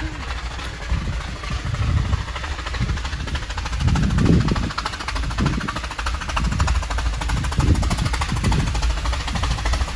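Wind buffeting the microphone: a heavy, uneven low rumble with a rapid flutter, swelling in gusts about once a second in the second half.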